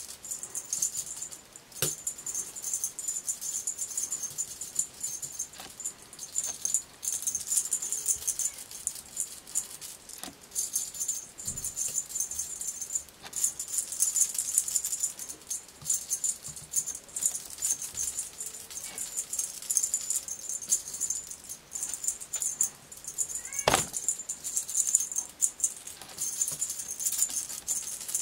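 A fast, high-pitched shaking rattle like a maraca or shaker, going in bursts of a second or two, with one short sharp sound about three-quarters of the way through.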